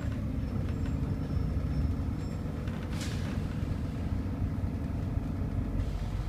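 Volvo B7RLE bus's six-cylinder diesel engine and ZF automatic gearbox heard from inside the passenger saloon, a steady low drone as the bus moves. About three seconds in there is a short, sharp hiss of air from the bus's air system.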